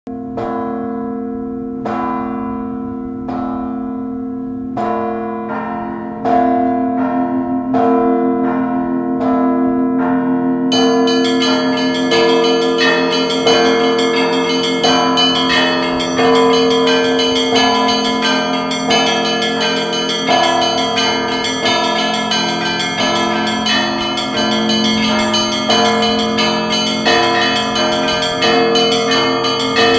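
Church bells ringing. Single strikes come about a second and a half apart at first and quicken about six seconds in. From about eleven seconds in they become a full, continuous peal of many high and low bells.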